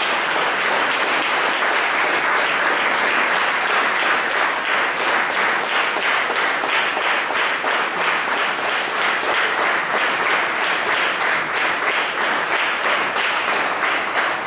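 Audience applauding. After about four seconds the clapping falls into a steady rhythm in unison.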